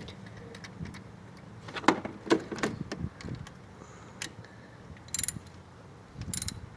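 Scattered clicks and light knocks of engine parts being handled, as the ignition coil is fitted back over the new spark plug.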